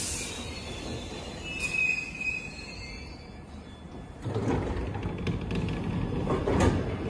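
London Underground 1972 Stock Bakerloo line train drawing to a stop, its wheels and brakes giving a brief high-pitched squeal about two seconds in. A few seconds later, louder noise as its sliding doors open.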